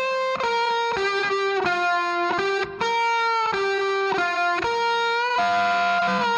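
Music: a solo guitar plays a slow melody of single held notes, each changing pitch about every half second, with no drums.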